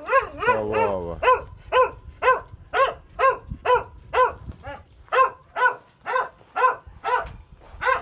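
A dog barking over and over in a steady run of about two barks a second, after a wavering, whine-like cry in the first second.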